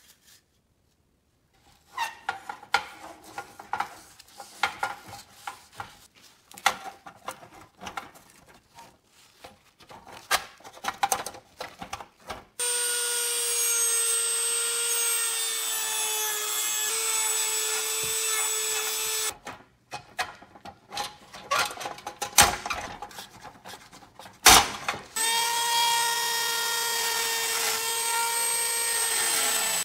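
Irregular clicks and scrapes of hand work on the toy's sheet metal. Then a Dremel rotary tool with a sanding drum runs with a steady high whine for about seven seconds, sanding rust and paint off a pressed-steel spoked wheel. After more clicking it runs again for about five seconds and winds down at the very end.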